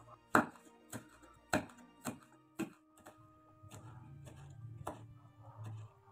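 Kitchen knife slicing red chillies on a wooden cutting board: the blade knocks on the board about twice a second, over faint background music.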